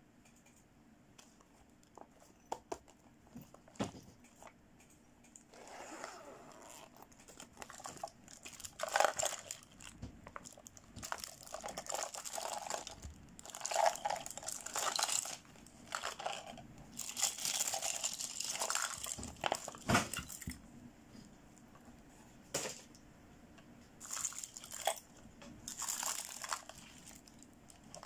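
Crinkling of thin plastic packaging and a holographic plastic pouch as it is handled, with clicks of small plastic toy accessories knocking together. A few faint clicks at first, then repeated bursts of crinkling from about five seconds in.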